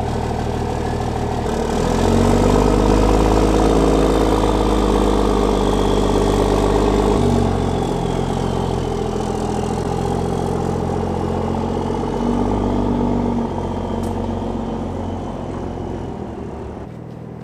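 Pickup truck engine pulling away under load while towing a trimaran on a two-axle trailer. The engine note climbs and drops abruptly about seven seconds in, rises briefly again near thirteen seconds, then fades as the rig moves off.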